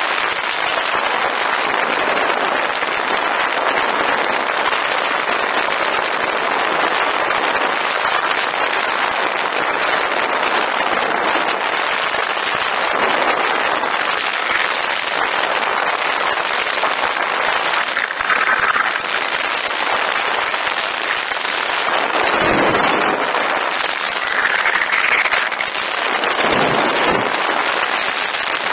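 Steady, dense rushing hiss of wind and propeller noise on the onboard camera's microphone of an FPV model plane in flight, with brief changes in tone a few times.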